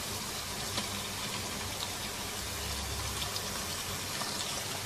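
Raw mutton pieces and sliced onions sizzling steadily in hot oil in a cooking pot, the meat freshly added and starting to sear.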